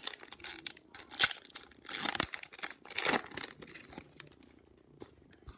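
A sealed hockey card pack's wrapper being torn open and crinkled by hand, in several rustling bursts that die down to a few light clicks near the end.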